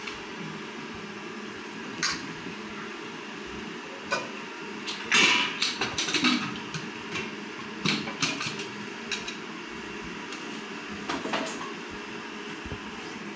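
A spoon clinking and scraping against stainless-steel and china plates as cooked rice is served. Scattered sharp clinks come thickest about five to six and a half seconds in, over a steady background hum.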